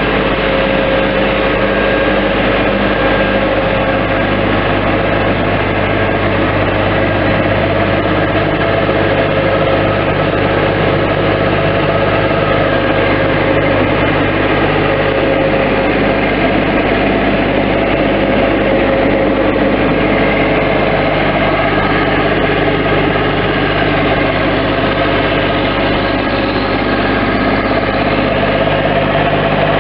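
Engine of a 2016 Bobcat MT-85 stand-on mini skid steer running steadily at an even speed, with no revving.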